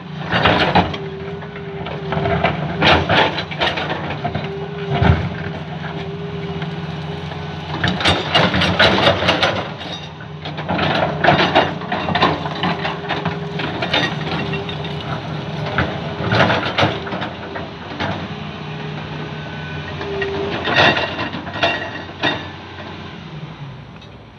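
Caterpillar 320B hydraulic excavator running with its diesel engine drone steady beneath a humming tone that comes and goes as the arm works. Its bucket scrapes and clatters through brick and concrete rubble in repeated bursts every few seconds.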